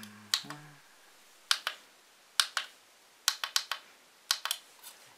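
Push buttons on an iMAX B6AC balance charger clicking as they are pressed, roughly once a second, many presses giving a quick double click. The buttons are stepping the lithium-ion charge setting's cell count up.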